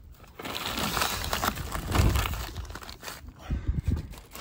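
Crinkling and rubbing of a flexible twin-wall polycarbonate greenhouse door panel being pushed open right against the microphone, loudest about two seconds in.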